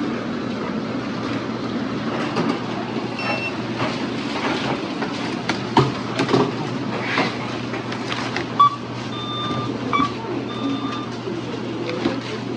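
Supermarket bustle with scattered clatter and knocks. From about eight and a half seconds in comes a run of short electronic beeps at two pitches, like checkout scanner or register beeps.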